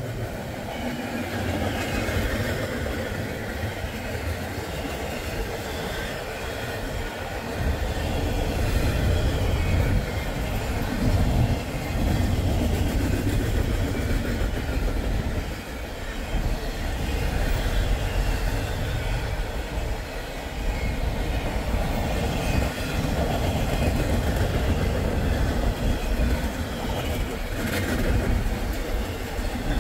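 Norfolk Southern double-stack container train rolling past, a steady rumble of steel wheels on rail and clatter from the well cars, growing louder about eight seconds in.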